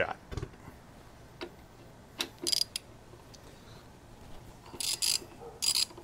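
Hand ratchet on a long extension with a T40 Torx bit clicking in several short quick bursts as it is swung back and forth, breaking loose the rear brake caliper mounting bolts. A light knock of the tool comes just at the start.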